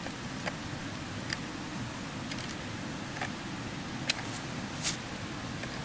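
Light, scattered clicks and crackles from a clear plastic bottle and dry leaves being handled, about six short ticks in all, the sharpest a little after four seconds in, over a steady low background rumble.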